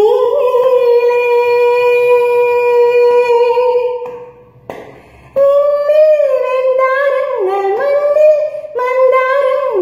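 A woman's voice singing unaccompanied: one long held note for about four seconds, a short pause for breath, then a line of notes that bend up and down.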